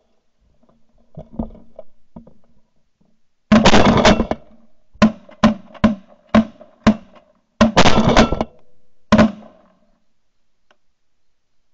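Volley of shotgun blasts from several hunters: a rapid cluster of shots about three and a half seconds in, then single shots about every half second, another quick cluster near eight seconds and a last shot about a second later.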